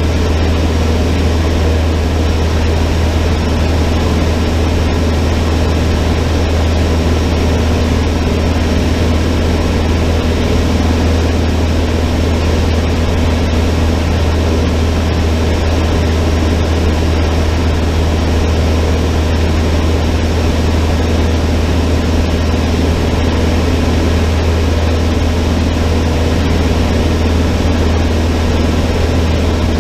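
Cessna 152's four-cylinder Lycoming O-235 engine and propeller running steadily: a loud, even drone with a strong low hum that doesn't change.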